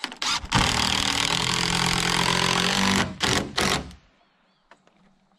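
Cordless drill driving a screw into a wooden trim board: a few short blips of the trigger, one steady run of about two and a half seconds, then two short bursts as the screw goes home.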